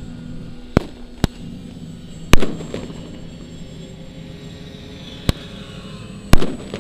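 Pyrotechnic ground charges going off as simulated bomb blasts in a mock air raid: five sharp bangs, the two loudest about two and a half seconds in and near the end. Under them runs the steady drone of model aircraft engines.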